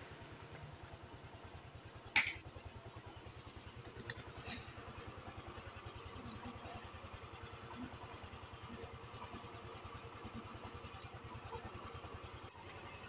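Light clicks of tools and parts being handled while a scooter's steering head is reassembled, with one sharp metallic click about two seconds in and a few fainter ones later. A steady low throb with a fast, even pulse runs underneath.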